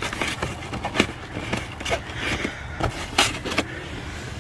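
Fingers pushing a wire into the gap between the headliner and the plastic A-pillar trim inside a car, rubbing on the trim with a few short knocks and clicks, one about a second in and two close together a little past three seconds.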